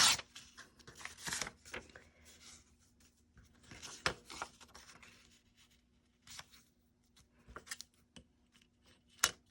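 Specialty paper being handled and worked: scattered short rustles and scrapes of paper, with a sharp tap about nine seconds in.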